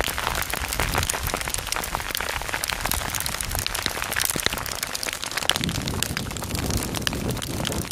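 Hailstorm: a steady, dense crackle of hailstones pelting the gravel, grass and the rider, with a low rumble underneath that grows stronger about two thirds of the way through.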